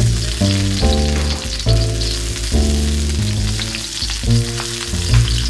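Garlic cloves sizzling in hot oil in a wok, stirred with a spatula. Background music with steady melodic notes plays over the sizzle.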